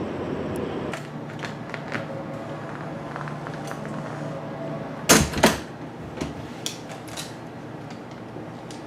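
A low steady rumble stops about a second in. Then a motel room door sounds: two sharp clunks close together about five seconds in, followed by a few lighter clicks of the latch or handle.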